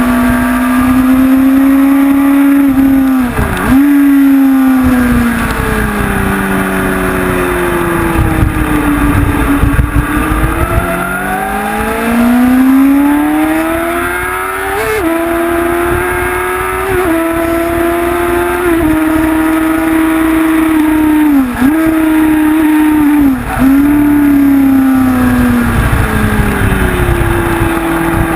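Onboard sound of a Honda CBR sport bike's inline-four engine, rising and falling in pitch as it accelerates and slows, with several quick gear changes that cut it briefly. A low rumble of wind on the microphone runs underneath.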